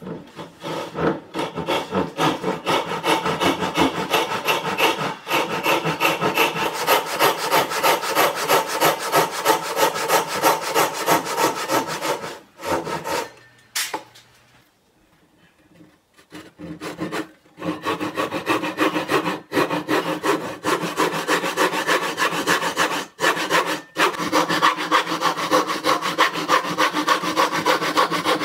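Hand saw cutting wood in steady back-and-forth strokes, about two a second. The blade rings faintly on each stroke. The sawing stops for about three seconds a little past the middle, then carries on at the same pace.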